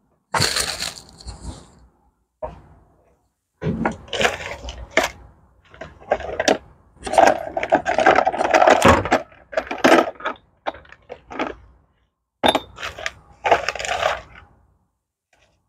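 Small metal screws and bolts clinking and rattling against each other as they are sorted through by hand, in irregular bursts with short pauses.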